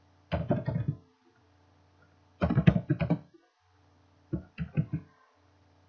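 Computer keyboard typing in three short bursts of quick keystroke clicks, with near silence between them.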